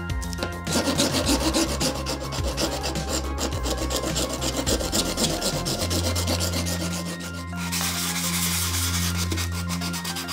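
A hand file rasps in quick strokes across a 3D-printed plastic part. From about seven and a half seconds in, abrasive paper rubs over the part's edge with a smoother, steadier scratching.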